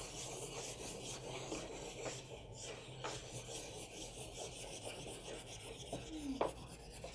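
Blending stick rubbing chalk pastel into paper: a soft, steady scraping rub as the gray and black are blended.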